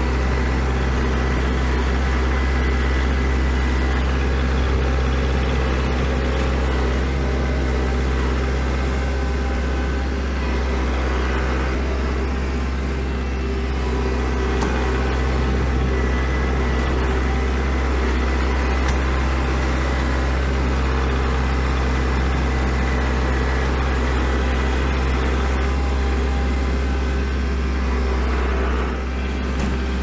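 Kubota L4701 tractor's diesel engine running steadily under load, heard from the operator's seat while it pushes snow.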